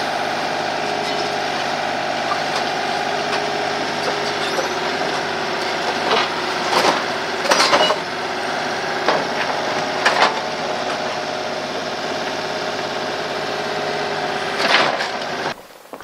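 Mini excavator engine running steadily, with several sharp cracks and knocks of wooden demolition debris being broken and shifted by its grapple, a cluster about six to eight seconds in, one at about ten seconds and another near the end. The engine sound cuts off suddenly near the end.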